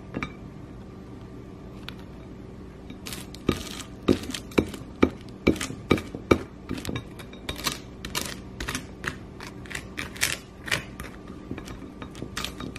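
A metal fork mashing and spreading avocado on toast: quick, irregular scrapes and taps of the tines against the crisp bread, several a second, starting about three seconds in.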